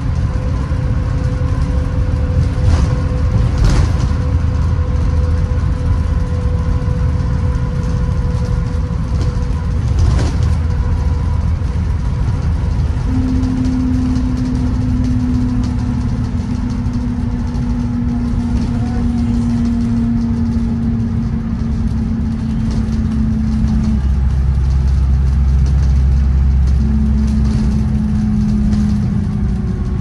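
2016 Blue Bird Vision school bus running down the road, heard from inside the passenger cabin: a steady engine and road rumble. A humming drone sets in about halfway through and returns briefly near the end, and there are a few knocks or rattles early on.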